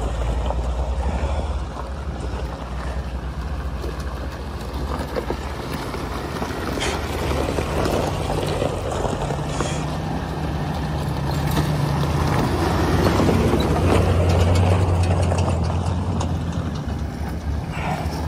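Jeep driving a dirt trail: a steady low engine hum under a rough layer of tyre and road noise, growing louder for a few seconds past the middle as it climbs.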